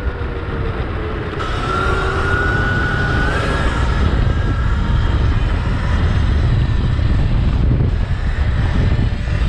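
Wind buffeting the microphone on a 72-volt Sur-Ron electric dirt bike riding at speed. A thin electric-motor whine comes in about a second and a half in and steps up in pitch a couple of seconds later.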